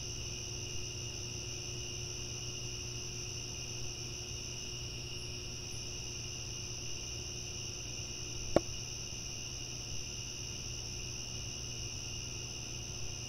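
Field crickets chirping in a steady night chorus, an even high-pitched trill that does not let up. A single sharp click cuts in about two-thirds of the way through.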